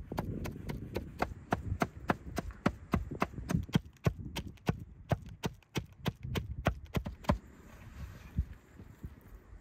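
A heavy meat cleaver chopping minced meat, onion and green onions on a thick wooden block: rapid, even knocks of the blade on the wood, about three to four a second, that thin out to a few softer strokes near the end.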